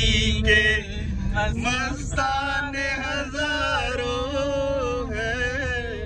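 A man's voice singing a slow, chant-like melody with long held notes, over the steady low rumble of a car on the move.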